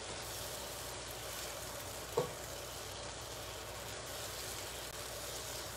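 Pancakes frying in a pan with a steady sizzle, and one short knock about two seconds in.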